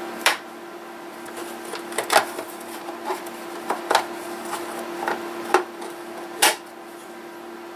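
Hands handling the plastic casing of a vintage portable radio cassette player: a series of separate clicks and knocks, about eight in all, some in quick pairs.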